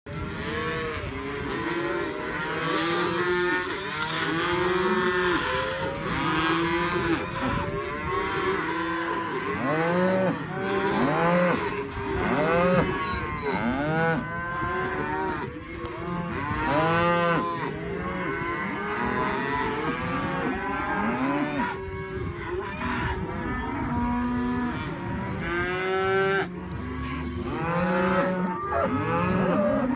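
Black baldy and shorthorn cattle mooing almost without a break, several animals calling over one another.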